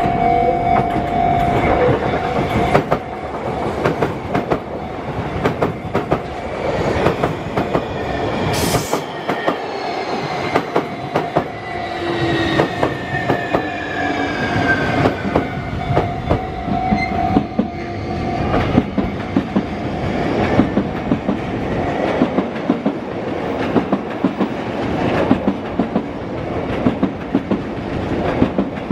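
Sotetsu 20000 series electric train passing a level crossing, its wheels clattering rhythmically over the rail joints. The crossing bell rings at the start and again through the middle. A motor whine falls in pitch partway through.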